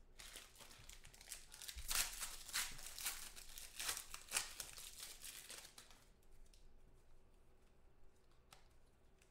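Foil trading-card pack being torn open and crinkled by hand, with several loud crackles. About six seconds in it goes much quieter, with only faint ticks as the cards are handled.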